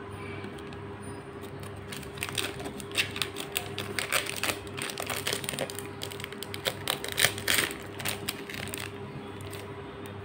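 Clear plastic protective wrap crinkling and crackling as it is peeled off the lens dome of a home security camera, an irregular run of crackles heaviest from about two to nine seconds in. A steady low hum sits underneath.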